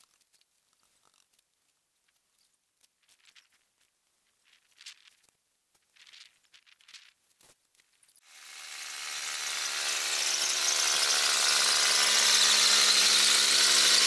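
Near silence with a few faint rustles, then about eight seconds in a power tool's motor comes in with a steady, high whine, swelling over a few seconds and then holding steady.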